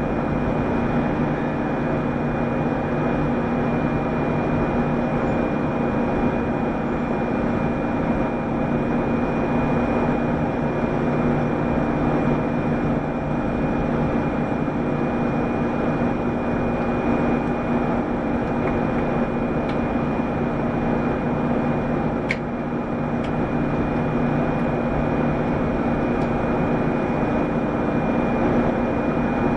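Mitsubishi Fuso PDG-AA273KAN city bus heard from inside the cabin: a steady diesel drone with a constant high whine over it, and one brief sharp click about two-thirds of the way through.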